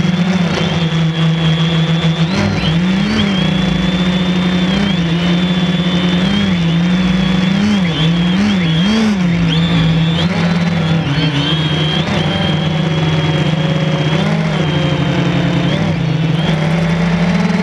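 Quadcopter drone's electric motors and propellers buzzing loudly, heard close up from on board, the pitch swooping up and down several times as the throttle changes during takeoff and flight.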